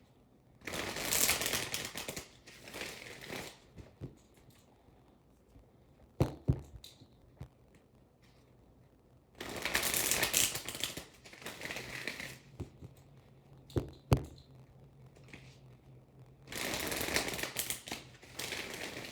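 Deck of tarot cards being shuffled in three rustling bursts of a few seconds each, with two sharp taps in between.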